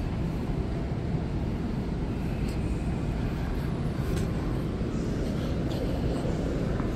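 Steady low rumbling outdoor background noise with a few faint light ticks.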